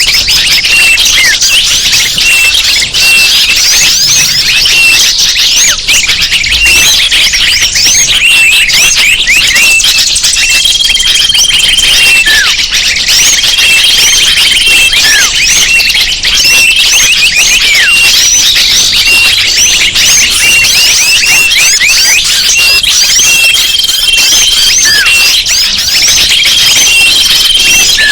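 Bird-lure recording: a dense, loud chorus of many small birds chirping and twittering over one another, with short steady whistles repeating every few seconds.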